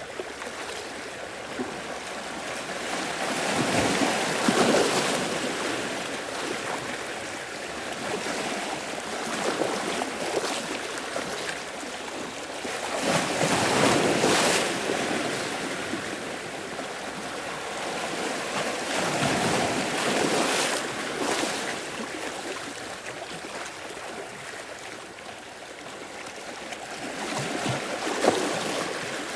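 Sea waves washing in and drawing back, in slow surges that swell and fade about every six to nine seconds, four times.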